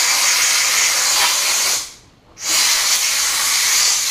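Compressed-air blow gun hissing as it blows through a pleated paper air filter cartridge to clear out dust. The air stops for about half a second near the middle, then resumes.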